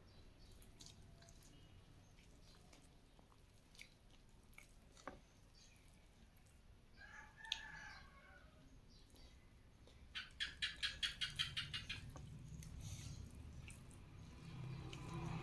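Faint clicks and smacks of fried chicken being picked apart with fingers and eaten, with a bird calling in the background: one short call a little past halfway, then a rapid run of about a dozen high chirps lasting about two seconds, the loudest sound.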